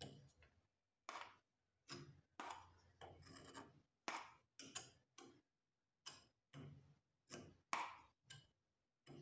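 Metal spatula scraping and smoothing wet plaster over a dental model mounted in an articulator, in a dozen or so short, separate strokes.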